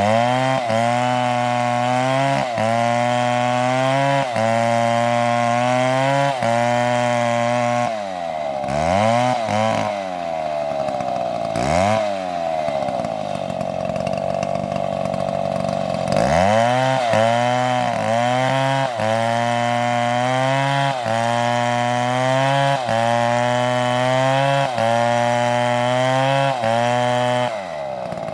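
Two-stroke chainsaw running at high revs, its pitch dipping briefly every second or two. About a third of the way in it drops back and revs up and down a few times, runs lower and steadier for a few seconds, then goes back to high revs until it drops away just before the end.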